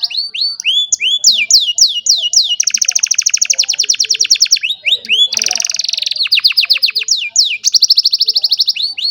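Domestic canary singing loudly and continuously: strings of sharply falling whistled notes alternating with fast, even trills, one running for about two seconds, and a brief buzzy phrase midway.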